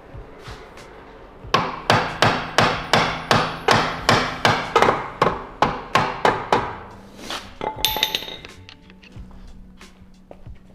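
Hammer striking metal on a Volvo XC90's rear suspension being dismantled: about fifteen sharp blows at a steady pace of roughly three a second, each with a short ring, followed by a brief metallic ring. Background music comes in near the end.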